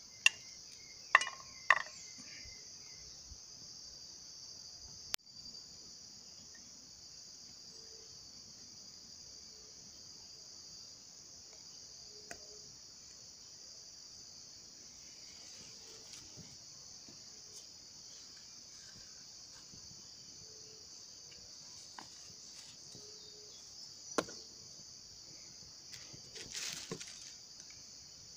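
Steady high-pitched insect chorus from the surrounding woods. A few sharp clicks and knocks break through it: two close together about a second in, one about five seconds in, one near 24 seconds, and a short rustle near the end.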